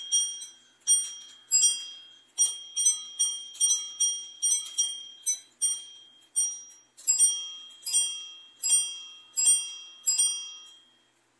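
Bells of a circa 1820–1840 French Comtoise (Morbier) clock striking: a run of about twenty strokes on more than one bell, each ringing on and fading, spaced unevenly. The minute hand is being turned round by hand toward the hour as it strikes.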